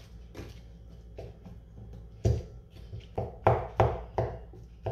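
Kitchen knife chopping through a block of soft white brined cheese, the blade knocking on a wooden cutting board. A few light taps first, then from about two seconds in a run of firm chops, roughly three a second.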